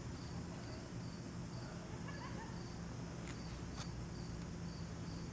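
A couple of faint metal clicks from a lock pick and tension tool being set back into a padlock's keyway, over a steady low hum and an evenly repeating high chirp in the background.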